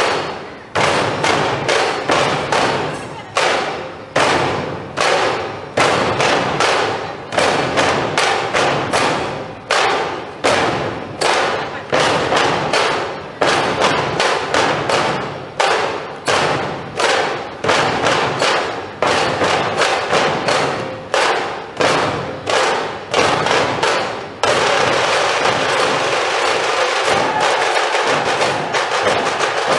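Rhythmic percussion strikes, about two a second, each ringing out before the next. About 24 seconds in they give way to a continuous dense wash of noise.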